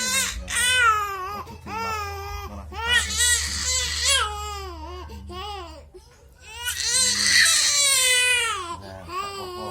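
Baby crying in a run of high wails, dipping briefly about six seconds in before the longest, loudest wail.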